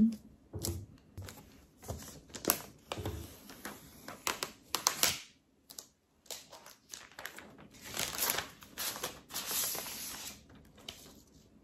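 Thin clear plastic protective wrap crinkling and rustling as it is handled and peeled off a new laptop, in a run of irregular crackles with a few soft bumps as the laptop is turned over.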